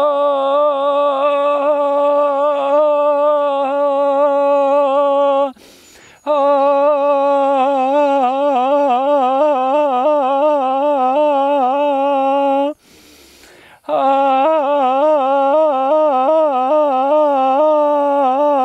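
A man singing three long held notes on an open vowel at one steady pitch, with a short breath between them. His voice trembles and wavers throughout, more strongly in the later notes: a quiver the singer hears as old sadness being released through the voice.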